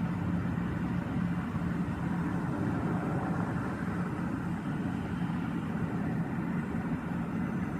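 Steady low mechanical drone with a faint hum in it, unchanging in level: noise of the kind complained of as urban noise pollution.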